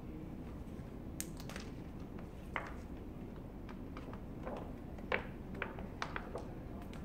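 A large sheet of vinyl window film crackling in scattered short snaps and ticks as it is handled and its edge pulled back from wet glass, over a steady low background rumble.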